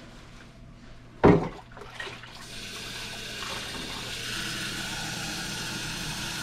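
Kitchen sink faucet running, filling a mug with water; the steady rush starts about two seconds in. Just before it there is a single sharp knock, the loudest sound.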